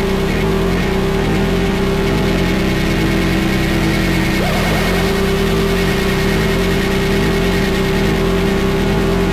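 Noise music: a loud, dense, unbroken wall of noise over a steady droning tone, with a brief wavering flutter about four and a half seconds in.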